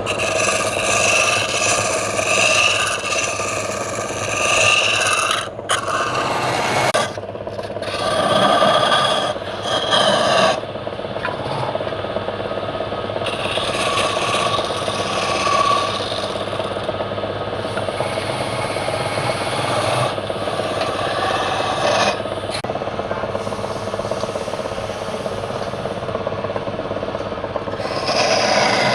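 Wood lathe running while a turning tool scrapes against the spinning wood. The cutting noise swells and eases as the tool is worked, with brief breaks about five and a half and seven seconds in.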